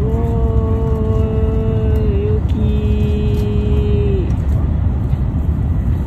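Shinkansen high-speed train running, heard from inside the carriage as a steady low rumble. Over it, a long steady-pitched tone holds for about two seconds, breaks briefly, then holds again for nearly two more seconds.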